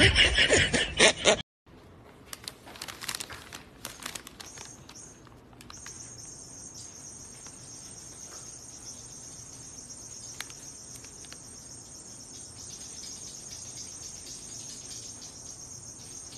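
Loud laughter that cuts off about a second and a half in. After it come faint rustles, then from about six seconds in a steady, high-pitched, cricket-like chirring.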